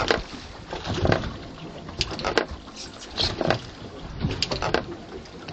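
Fishing boat at sea: water sloshing against the hull, with scattered irregular knocks and clatter on board.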